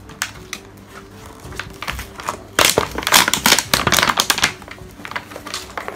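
Clear plastic packaging crinkling and rustling as it is pulled open and handled, loudest for about two seconds in the middle. Faint background music with a simple melody runs underneath.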